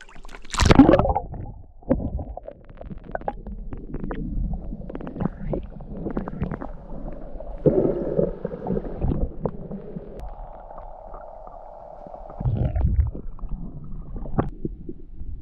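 Sea water sloshing and gurgling around an action camera at the surface, with a splash about half a second in; when the camera dips under, the sound turns to a muffled underwater rumble with scattered knocks.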